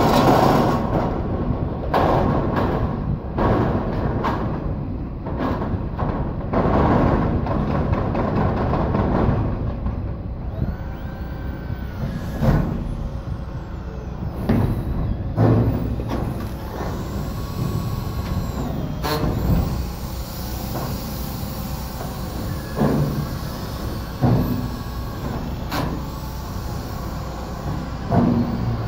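Corrugated steel roofing panels clanging and rattling as they are slid and laid on the roof, with many sharp knocks, thick in the first half and scattered later. A steady low rumble runs underneath.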